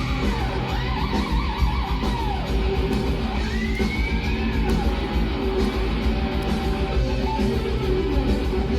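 Instrumental break in a Malay rock song: an electric guitar plays a lead line with bent, sliding notes over the backing band.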